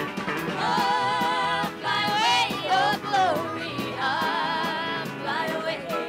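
A woman singing live with a country band, her voice wavering with vibrato over acoustic guitar and a steady beat.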